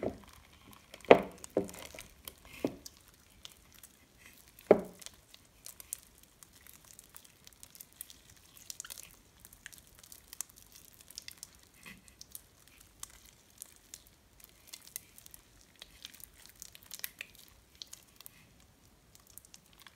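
Sticky clear-glue slime being stretched and kneaded by hand, left a little sticky from a light dose of activator: a few loud sudden pops in the first five seconds, then many faint clicks and crackles.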